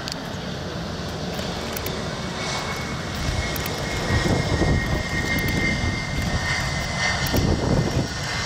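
Airbus A350-900 airliner's Rolls-Royce Trent XWB jet engines running during its landing rollout on the runway: a deep rumble, with a steady high whine coming in about two and a half seconds in.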